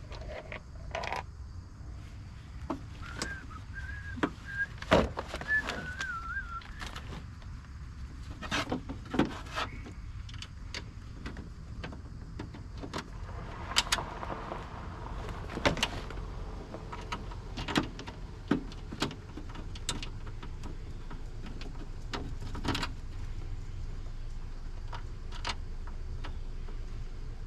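Scattered metallic clicks and knocks from hands and tools working inside a stripped car door, fitting the power window motor and regulator. A brief warbling whistle comes a few seconds in.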